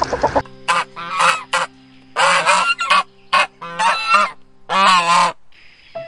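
Waterfowl honking: a run of separate calls, a few short honks at first, then longer calls.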